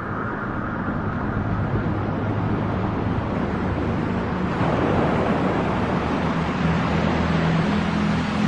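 Sound Oasis SN-650 white noise machine playing a steady rushing masking noise that swells about halfway through, over a low steady drone.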